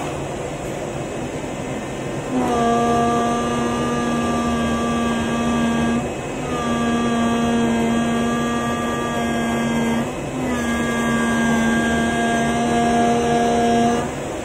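CNC knife cutting machine's cutting head working through polyester fibre acoustic board: a steady pitched hum comes in about two seconds in and runs in three passes of roughly three and a half seconds each, with brief breaks between them and a sudden stop near the end. A constant lower machine noise runs underneath.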